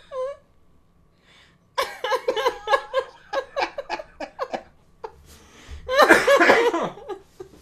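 People laughing hard in fits after a short quiet start, with the loudest burst of laughter about six seconds in.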